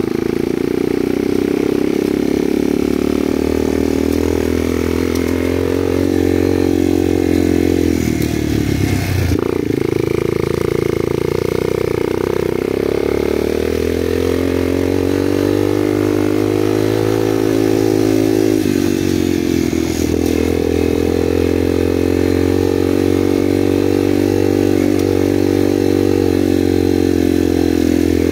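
Motorcycle engine running, its pitch rising and falling with the throttle and dipping briefly twice, about eight and about twenty seconds in.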